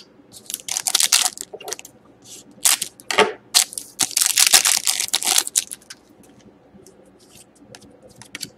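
Foil trading-card pack wrapper crinkling and tearing as it is opened by hand, in a run of sharp crackling bursts over the first five seconds or so. Fainter rustling of the cards being handled follows.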